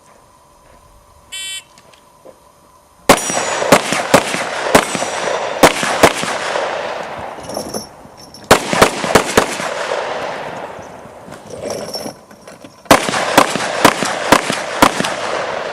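A shot timer's short electronic start beep, then strings of rapid pistol shots, close and loud, in three bursts with short pauses between, as a shooter runs an IPSC stage.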